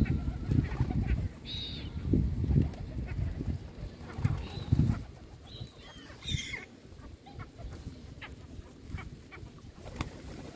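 Gulls giving short high squealing cries a few times, mostly in the first seven seconds, over loud low thumping bursts in the first half, then a quieter stretch with faint scattered ticks.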